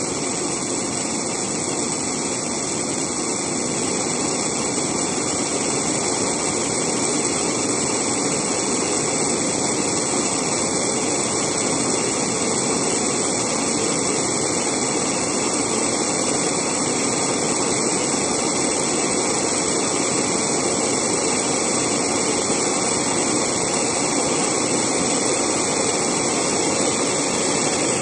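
A 1949 Spit-Fire A-100 alcohol blowtorch burning with a steady hiss of its pressurised flame jet, slowly growing a little louder.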